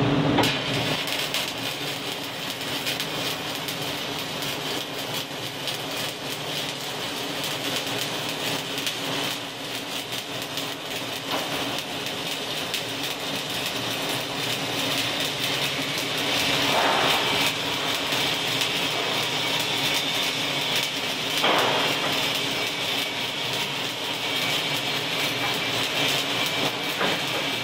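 Electric arc welding on a lap joint: the arc is struck just after the start and then crackles and sizzles steadily and continuously, with fine irregular pops, over a faint steady hum.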